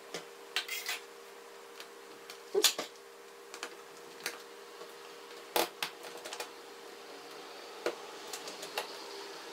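Scattered light clicks and taps of small screws and a screwdriver being worked around the aluminium frame of a MacBook Pro's LCD panel as its retaining screws are taken out, with a couple of sharper clicks, one a little under three seconds in and one about halfway. A faint steady hum runs underneath.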